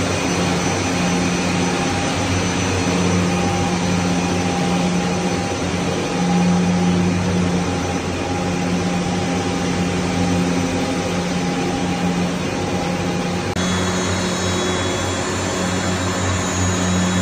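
FDY yarn spinning and winding machines running: a loud, steady machine hiss with a low hum underneath. The tone shifts slightly about three-quarters of the way through.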